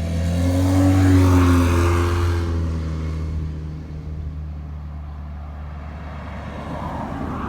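A motor vehicle passing by, swelling to its loudest about a second in and fading over the next two seconds, over a steady low hum.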